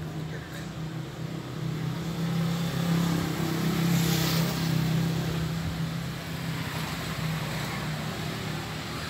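A motor vehicle passing: a low engine hum swells to its loudest about four seconds in, then fades.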